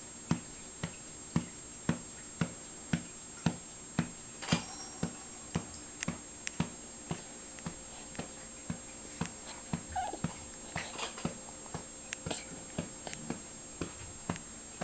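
Steady, even pats on a back, about two a second, to bring up a burp. A brief small whimper comes about ten seconds in.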